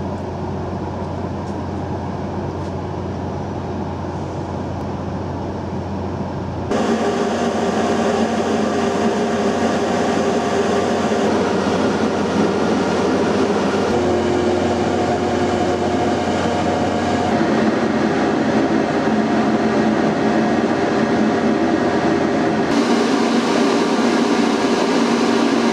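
Steady machinery drone of a cargo ship, with several held hums, changing abruptly about seven seconds in and again near the end.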